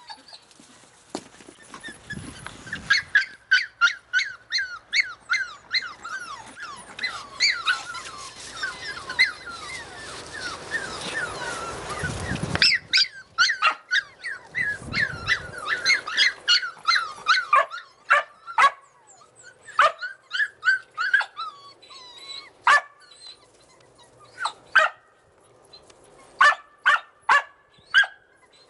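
Australian Cattle Dog puppies yipping and whining: many short, high-pitched yips that come thick and fast at first, then thin out into scattered runs.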